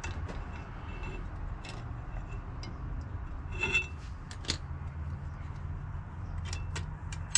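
A few light metallic clicks and clinks as rear drum brake hardware is handled on the backing plate, the sharpest two about halfway through, over a steady low hum.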